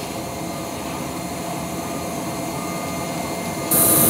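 Steady drone of a machine running, with several held hum tones. Near the end a loud, high hiss cuts in suddenly.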